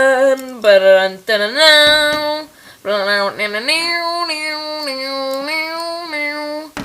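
A young voice singing loud, long held notes in a few short phrases, sliding between pitches, the last note held for about three seconds before it stops.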